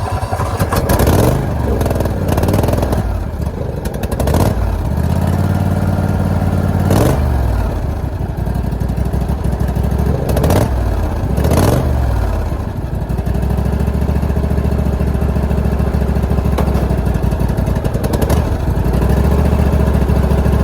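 Old Husqvarna lawnmower's small engine running just after a cold start. It revs up and back down several times in the first half, then settles into a steady fast idle, which the owner says idles a little high.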